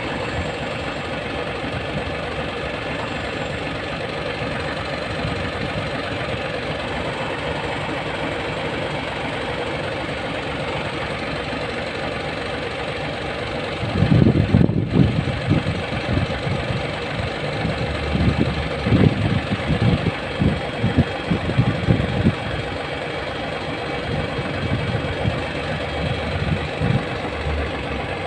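Hino E13C inline-six truck diesel idling. About halfway through, irregular loud low thumps start and keep coming in uneven bursts.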